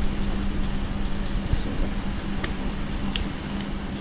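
A steady low hum and rumble, with a few light sharp clicks and crinkles as a plastic motorcycle tank cover is pressed into place over bubble wrap.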